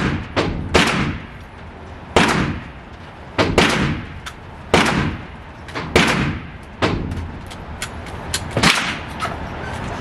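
Gunshots at a shooting range: a dozen or so shots at irregular intervals, some louder than others, each trailed by a short echo.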